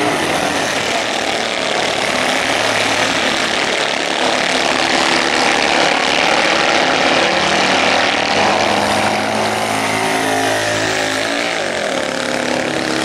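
Several Citroën 2CV cross racing cars running hard on a dirt track, their air-cooled flat-twin engines buzzing at high revs together. Near the end the engine pitch falls as one car passes close.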